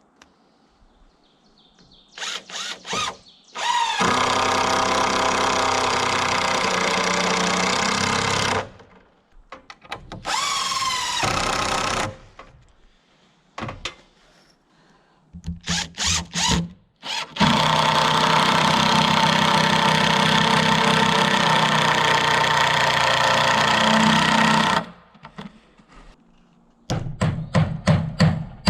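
A power drill runs in several bursts, including two long steady runs of about five and seven seconds; one shorter run starts with a rising whine as it spins up. A quick series of knocks comes near the end.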